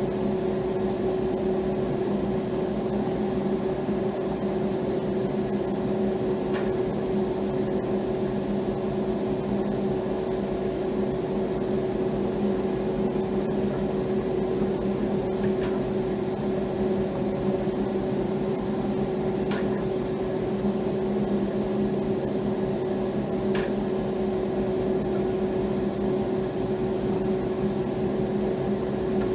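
A steady machine hum at an unchanging level, with a few faint clicks.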